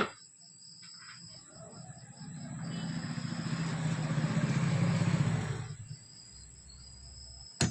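A motor vehicle's engine passing by, swelling for about three seconds and then fading away.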